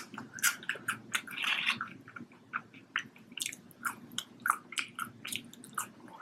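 A person chewing food close to the microphone: a run of short, wet mouth clicks and smacks a few times a second, with a longer noisy chew about one and a half seconds in.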